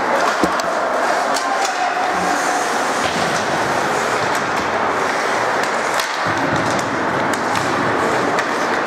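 Ice hockey play in an arena: skate blades scraping the ice, with sharp clacks of sticks and puck throughout, over a steady rink hum and faint distant voices.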